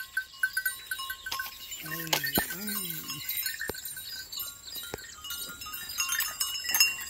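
Goat bleating, two short wavering calls about two seconds in, with small clinks from a brass neck bell now and then.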